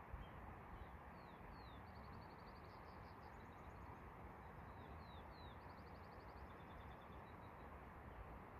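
A small songbird singing faintly over a steady hiss: a phrase of two quick down-slurred notes followed by a fast trill, given twice.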